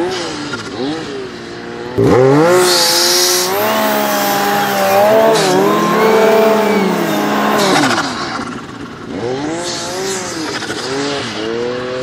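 Aftermarket-turbocharged Yamaha Nytro snowmobile's three-cylinder four-stroke engine revving hard and falling off again and again as the sled works through deep powder. It gets suddenly louder about two seconds in, with a short hiss soon after.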